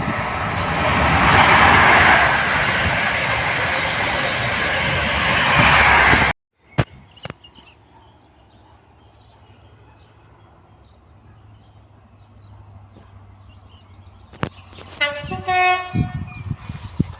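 Train passing close by: a loud rumble and wheel noise that cuts off abruptly about six seconds in. A quieter stretch with a low steady hum follows, and near the end comes a short train horn blast.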